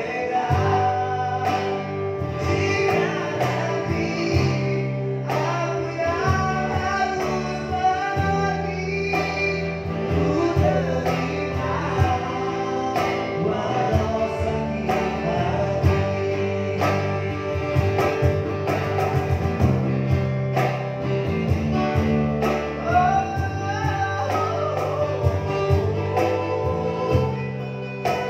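A small live acoustic band: male voices singing together, with a strummed acoustic guitar, a small plucked string instrument and cajon beats.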